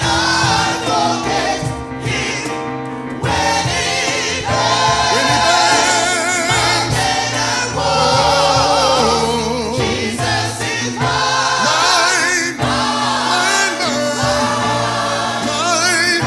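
Gospel choir singing with band accompaniment, sustained held chords with vibrato over a steady bass line.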